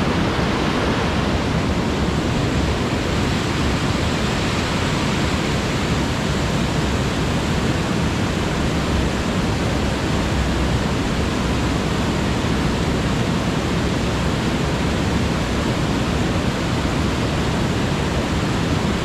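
Steady, loud rush of fast-flowing stream water.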